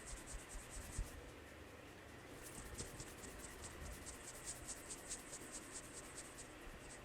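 Fingers scratching and rubbing through hair and scalp in a head massage: fast, even scratchy strokes, about five a second, pausing briefly near the start, with one soft thump about a second in.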